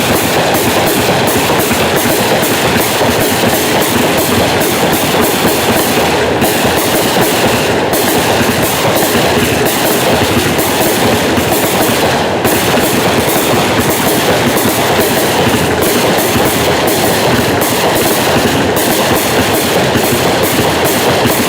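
Black Cat American Freedom Train 180-shot compound firework cake firing in a rapid, unbroken barrage, shots and bursts overlapping into a continuous fast clatter of bangs and crackle.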